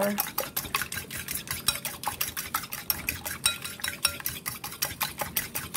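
A fork beating eggs in a mixing bowl, its tines clicking against the bowl in a fast, even rhythm of about six or seven strokes a second.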